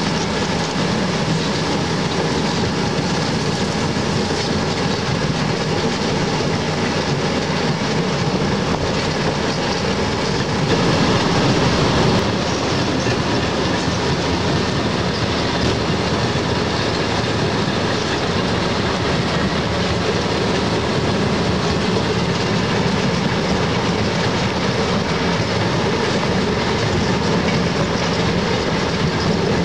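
Train rolling along the track, heard from aboard: a steady running noise of wheels on rails, a little louder about eleven seconds in.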